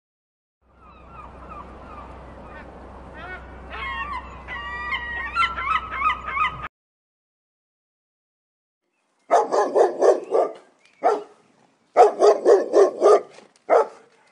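Geese honking, many calls overlapping and growing louder over a low steady rumble, cutting off about six and a half seconds in. After a short silence a dog barks in quick runs of barks, with single barks between them.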